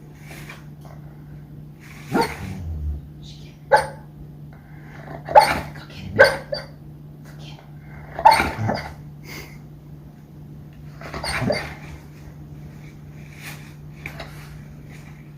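A sleeping dog barking in its sleep while dreaming: about seven short, separate woofs spread irregularly, the loudest in the middle.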